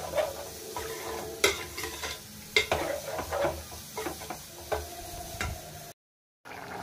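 Steel ladle stirring and scraping through a watery tomato-and-egg curry in a metal pot, with sharp clinks of metal on the pot, loudest about a second and a half in and again a second later. Near the end the sound cuts out briefly, then the curry bubbles at a simmer.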